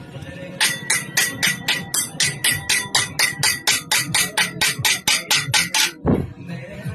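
A fast, even run of sharp metallic strikes, about four or five a second, each with a short ring, stopping just before six seconds. A low falling whoosh follows.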